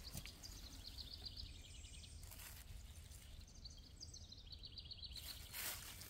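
Faint bird song: two rapid trills of short, high notes, each about a second and a half long, over a low wind rumble. A brief rustle comes near the end.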